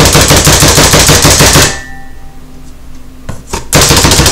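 Pampered Chef plunger food chopper being pounded rapidly to chop green onions, its plunger and blades clacking loudly in quick succession. The pounding stops about a second and a half in, two single clicks follow, then another short burst of pounding near the end.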